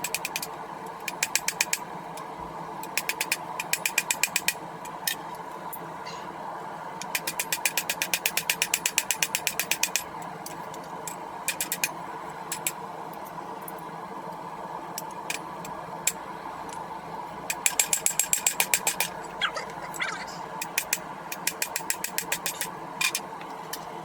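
Runs of rapid, sharp hammer blows on hot steel, about eight a second, come several times over a steady forge hum. Single strikes fall between the runs.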